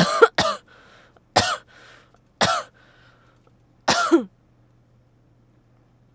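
A woman with a cold coughing in a fit, about six coughs in four seconds: three in quick succession, then single coughs about a second apart, ending in a double cough.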